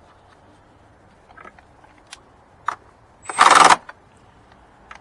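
Light clicks and knocks of hand tools and engine-bay parts being handled, with one loud rasp lasting about half a second a little past the middle.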